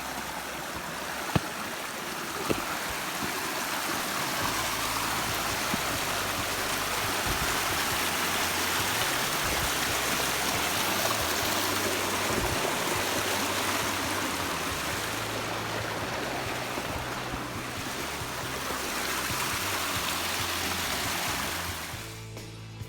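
Rushing water of a mountain stream, a steady hiss that swells, holds and eases off, then cuts out near the end, with background music beneath it.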